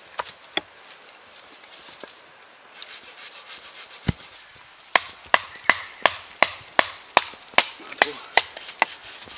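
Splitting kindling on a wooden chopping stump: a fast, even run of sharp wooden knocks, about three a second, starting about halfway through as a blade is driven down into the sticks. Before that there are only a few scattered light knocks and one dull thud.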